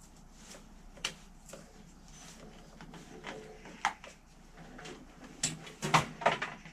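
Scattered clicks and knocks of small parts and tools being handled: a sharp click about a second in, another near four seconds, and the loudest cluster of clacks near the end.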